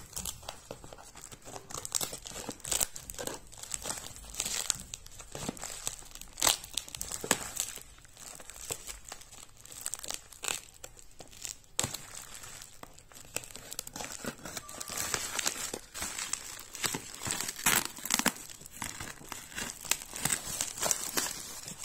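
A parcel wrapped in clear plastic tape and brown paper being cut and torn open, its plastic wrap crinkling and crackling in irregular bursts.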